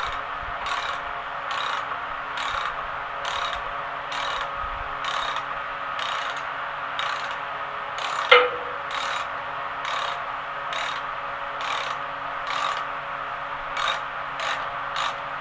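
Ratchet wrench worked in steady repeated strokes, roughly one a second and quickening near the end, backing out exhaust manifold bolts. About eight seconds in there is one sharp metallic clink, and a fan hums steadily underneath.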